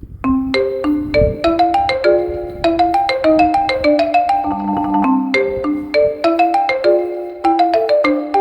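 Background music: a bright, quick melody of struck mallet-instrument notes, like a marimba or xylophone.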